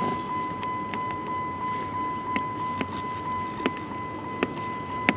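A steady high-pitched tone over a low noisy hiss, with about a dozen light clicks at irregular intervals.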